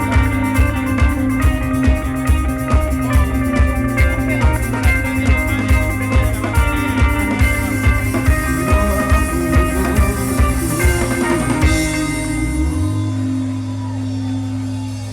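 Live rock band playing: electric guitar and bass with a steady driving drum kit beat. About twelve seconds in the drums stop and a held chord rings on.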